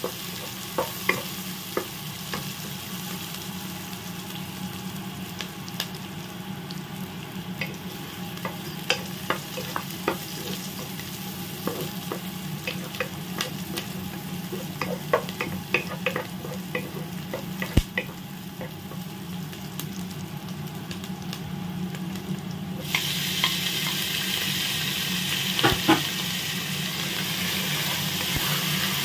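Sliced onion and garlic sizzling in oil in a pot, stirred with a wooden spatula that knocks and scrapes against the pan in short, irregular clicks. About three quarters of the way through, the sizzling gets louder as shredded chicken goes into the pan and is stirred in.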